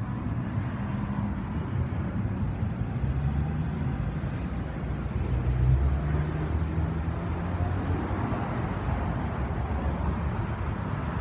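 City street traffic: a motor vehicle engine running close by as a steady low rumble over general street noise, a little louder about six seconds in.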